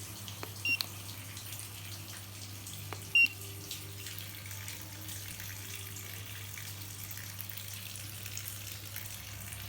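Water running steadily from a tap over a low electrical hum, with two short high electronic beeps about two and a half seconds apart, the second louder.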